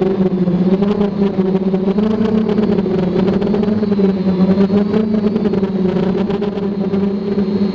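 Traxxas Aton quadcopter's motors and propellers humming steadily in flight, the pitch wavering slightly as the throttle shifts.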